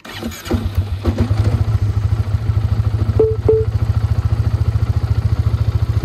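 2009 Polaris Sportsman 550 XP's single-cylinder engine catching about half a second in and then running at a steady idle, with two short beeps a little after three seconds in.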